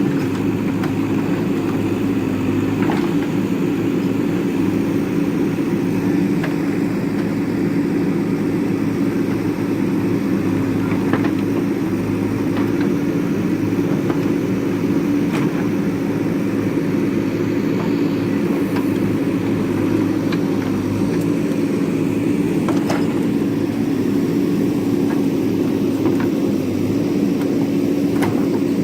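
JCB backhoe loader's diesel engine running steadily at a constant speed, with a few light clicks now and then.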